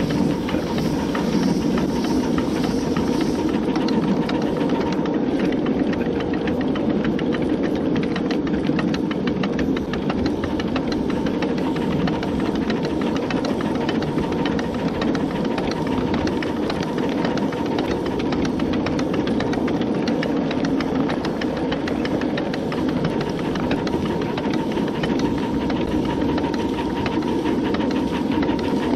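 A 1.5-inch scale, coal-fired live-steam 2-8-0 locomotive (a Long Island H-10 model on 7½-inch gauge track) running along the line: a steady hiss of steam with a fast, even clatter from the running gear and wheels on the rails.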